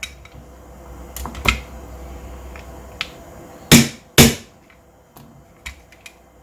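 Clicks and knocks of a disassembled Hi-Capa gas-blowback gel blaster's parts being handled and worked, with two loud sharp knocks about half a second apart near the middle.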